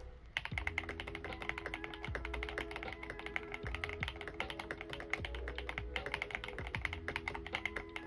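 Continuous fast typing on a tape- and foam-modded Yunzii YZ75 mechanical keyboard with pre-lubed Strawberry V2 switches and XDA-profile keycaps: a quiet, rapid stream of keystrokes that starts a moment in.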